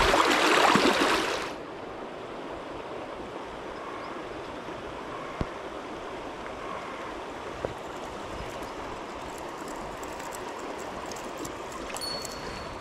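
Shallow stream water rushing, loud and close for the first second and a half while a hand is down in the fast current, then the steadier, quieter flow of the stream running over its stones, with a couple of faint clicks.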